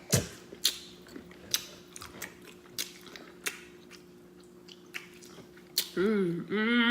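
Wet mouth smacking while chewing food close to the microphone: about ten separate sharp smacks spread out over several seconds. Near the end a person starts humming.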